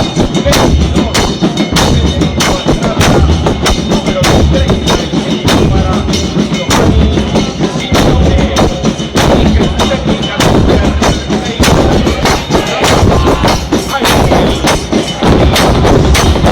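Argentine football supporters' drum band playing a fast, steady rhythm: bombo bass drums pounding under crashing cymbals (platillos) and the rattling strokes of repique drums.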